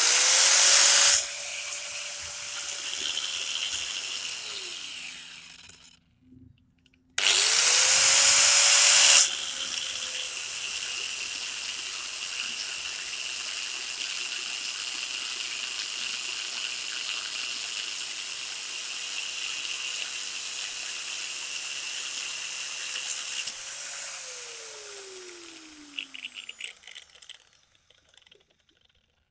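Angle grinder switched on twice. Each start brings about two seconds of loud metal-on-metal grinding, as a steel rod held against the spinning flange nut throws sparks, a keyless way of working the nut. The first run winds down after a few seconds; the second runs steadily for about fifteen seconds, then the motor's whine falls away as it spins down, with a few light clicks near the end.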